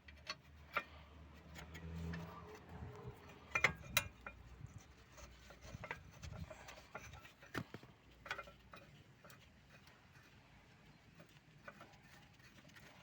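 Scattered light metallic clicks and clinks as caliper bolts are handled and threaded by hand onto a VAZ 2109 front brake caliper, with a few sharper knocks among them.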